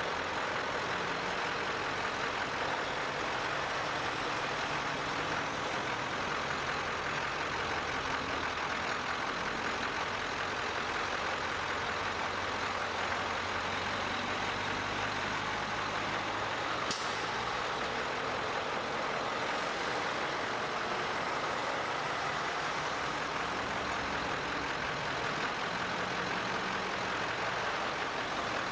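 A line of heavy diesel tow trucks and dump trucks driving past, a steady mix of engine drone and tyre noise, with a short sharp click about two-thirds of the way through.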